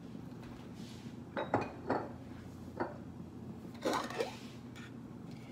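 Light clinks and knocks of kitchen containers and utensils being handled and set down, four or so separate taps spread across a few seconds.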